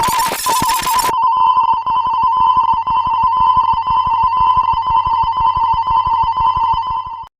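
Level-crossing warning bell ringing continuously with a fast, trilling electric-bell rattle on one pitch. It cuts off suddenly near the end.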